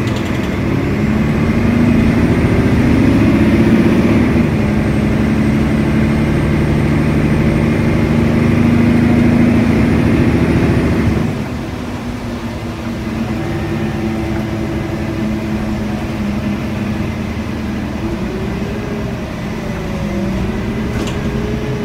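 Mercedes-Benz Citaro O530 bus's OM 457 inline-six diesel under full-throttle kickdown, heard from inside the cabin. The engine note climbs, steps down at a gearshift about four seconds in and climbs again; about eleven seconds in the throttle comes off and the engine drops to quieter running.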